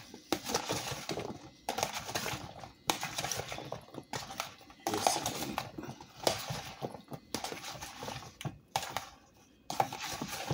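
Spoon stirring chopped cucumber salad in a plastic food container, clicking and scraping against the plastic in short spells of about a second with brief pauses between.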